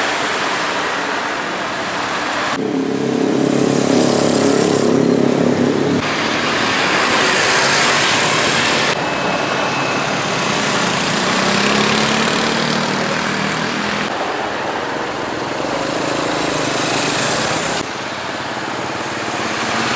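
Road traffic passing close by: vans, cars and motorcycles going past one after another, with engine and tyre noise. The sound changes abruptly several times where one clip cuts to the next, and one stretch about three to six seconds in carries a single vehicle's steady engine note.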